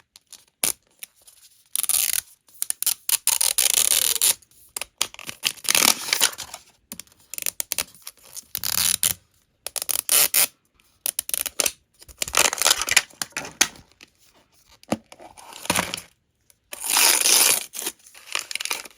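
Plastic packaging of a Miniverse surprise ball being torn open and unwrapped, in irregular bursts of tearing and crinkling with short pauses between.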